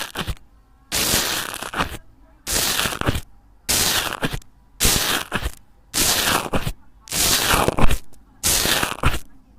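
Slime being squeezed and pressed over and over, about eight crackling, squelching presses at roughly one a second.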